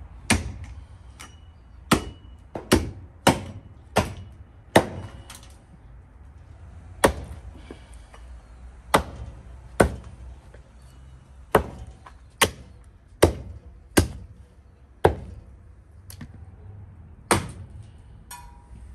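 Hatchet chopping through a bull's head and leg bones on a wooden chopping block: about fifteen sharp chops, coming quickly for the first few seconds, then more spaced out.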